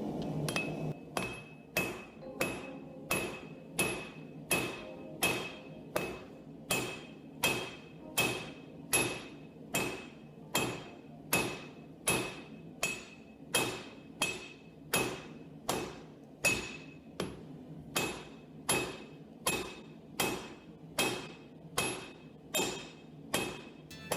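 Blacksmith's hand hammer striking a hot railroad spike on an anvil in a steady rhythm, a little under two blows a second. Each blow leaves a short metallic ring from the anvil.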